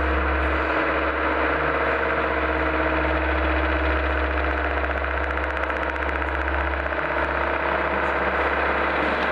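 Dense, steady electronic drone from an experimental sound-art piece, with a deep hum underneath and many held tones layered above it.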